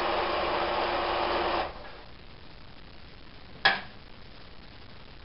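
Domestic electric sewing machine running at a steady speed, stitching a seam through patchwork blocks, then stopping about a second and a half in. About two seconds later comes a single sharp click, the loudest sound.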